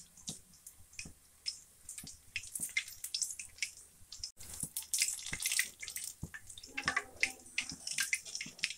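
Battered green chillies (mirchi bajji) deep-frying in hot oil in a kadai. The oil sizzles and crackles with many sharp pops, growing busier about halfway through, as a perforated metal skimmer turns the fritters.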